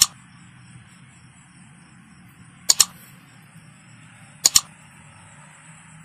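Three sharp double clicks, each pair quick and about two seconds apart, over a steady high-pitched drone of night insects.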